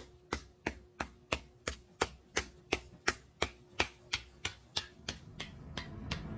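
Sharp, evenly spaced clicks, about three a second, over a faint steady hum; about five seconds in the clicks fade and a rising whoosh begins to build.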